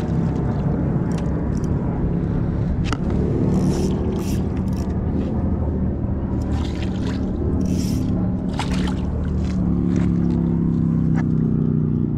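Hooked trout splashing at the surface in short bursts as it is reeled in, over a steady low motor hum.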